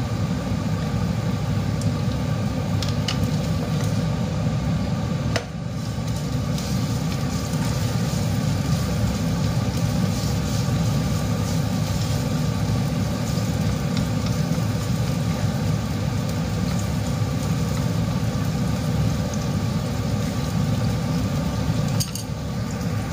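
Garlic, onion and ginger sizzling as they are sautéed and stirred in a saucepan, with a few light taps of the utensil against the pan, over a steady low hum.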